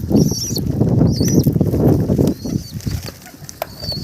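Pigeons moving about in a rooftop loft: a stretch of wing fluttering and scuffling, with a few short high squeaks. It dies down after about two seconds, leaving a few light clicks.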